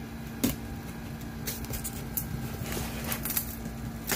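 Cardboard box and packaging being handled while unpacking: a sharp knock about half a second in, then a run of quick rustles and clicks in the second half, over a steady low hum.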